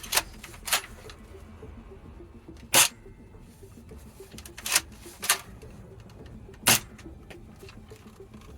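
Sharp plastic clacks of an airsoft shotgun's action being worked and fired, six in all at uneven spacing: two about half a second apart near the start, another pair a little past the middle, and two single louder ones between.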